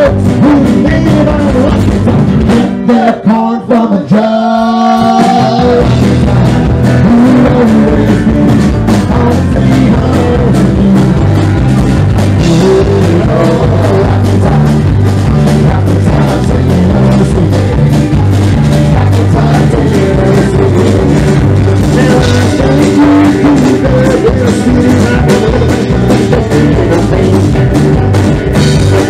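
Live Southern roots rock band playing an instrumental passage with electric guitars, bass and drum kit. About three seconds in, the bass and drums drop out for a couple of seconds, leaving bending lead notes, and then the full band comes back in.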